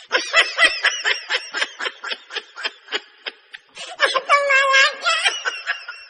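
High-pitched snickering laugh sound effect: a quick run of short laughing bursts, about six a second, then a drawn-out wavering note about four seconds in.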